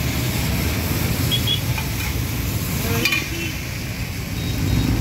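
Chowmein noodles sizzling on a large flat griddle as they are stirred and scraped with a metal spatula, over steady low street noise.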